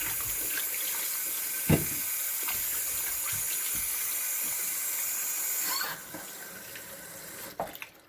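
Kitchen tap running steadily as fresh corn cobs are rinsed in the sink, with a single thump about two seconds in. The water stops about six seconds in, leaving a few light knocks.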